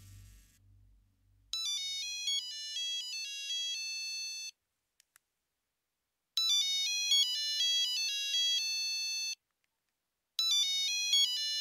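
Mobile phone ringtone: a short electronic melody of stepped notes plays three times with pauses between, the third time cut short.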